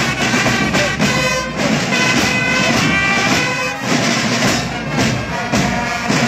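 Marching drum band playing a fast, steady beat on snare-style drums, with a sustained pitched melody line over the drumming.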